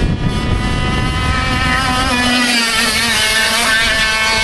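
100 cc two-stroke kart engine running at high revs as the kart passes, a high-pitched buzz whose pitch wavers and dips about halfway through as the driver lifts for the corner, then holds steady.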